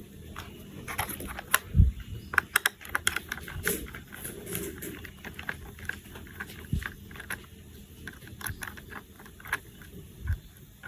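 Plastic toy parts being handled and fitted together: irregular light clicks and taps, with a few dull thumps.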